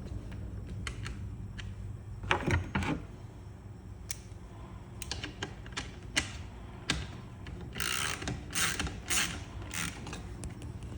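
Hand tools and metal pump parts being worked during a pump disassembly: scattered clicks and knocks, with a run of about five short noisy strokes near the end.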